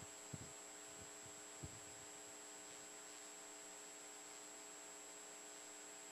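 Near silence with a steady electrical hum and a thin high whine, and two faint low knocks in the first two seconds.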